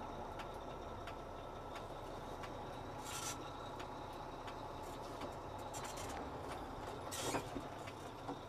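Semi-truck tractor's diesel engine running at low speed as the tractor reverses slowly under a trailer to couple. A steady ticking, about three a second, runs through it, with a few brief hisses, the loudest about seven seconds in.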